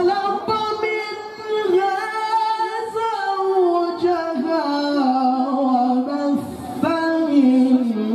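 A male qari's amplified Qur'anic recitation (tilawah) in long, melodic held phrases with ornamented turns, the pitch stepping gradually downward through the phrase. There is a short break for breath about six and a half seconds in.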